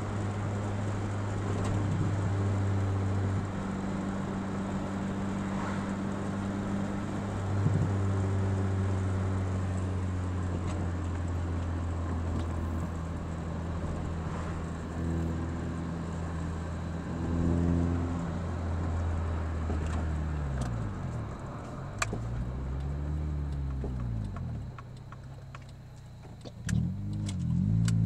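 Honda F23A4 2.3-litre four-cylinder with cold-air intake, headers and cat-back exhaust, heard from inside the car, running at fairly steady revs. In the last several seconds its pitch swings up and down repeatedly as the revs rise and fall.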